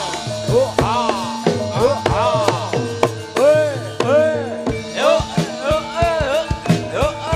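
Javanese gamelan music for jathilan: a melody bending up and down in short arcs over steady ringing gong-chime tones, with sharp drum strokes that quicken from about five seconds in.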